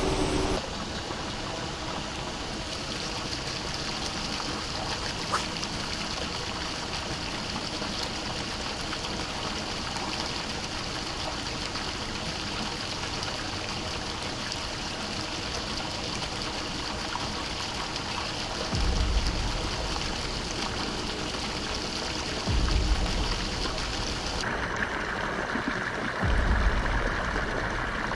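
Water gushing steadily from pump outlet pipes into a pond, a continuous splashing rush. Three short low rumbles come in the last third, wind or handling on the microphone.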